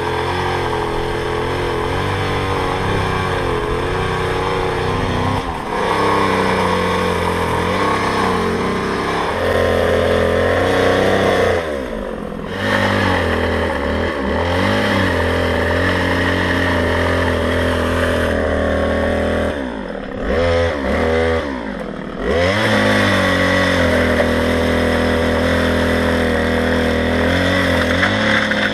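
Small gas chainsaw running and cutting branches, its engine speed dropping sharply several times under load and picking back up.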